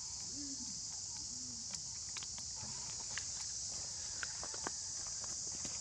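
Steady high-pitched insect chorus droning throughout, with scattered light clicks and taps over it.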